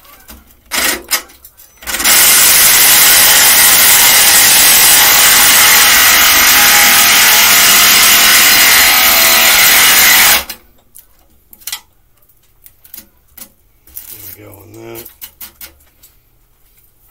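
Cordless cut-off tool's abrasive wheel cutting a rusted bolt flush on a steel mower deck: a loud, steady grinding that starts about two seconds in and stops suddenly about eight seconds later. A few light clicks and knocks of handling come before and after it.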